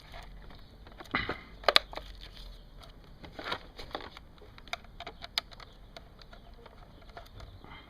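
Hands closing up a mini PC's plastic case: a series of sharp clicks and knocks as the panel goes back on, the loudest two close together about a second and a half in, with some rustling handling noise.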